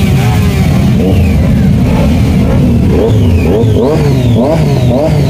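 Loud high-performance vehicle engines revved in quick, repeated blips, the pitch swooping up and down over and over, several engines overlapping. The blipping grows faster and denser about halfway through.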